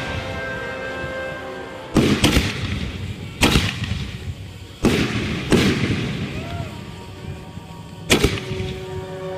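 Consumer aerial firework shells fired from mortar tubes, going off in a series of sharp loud bangs, about six of them at uneven spacing, two in quick succession about two seconds in. Music plays underneath.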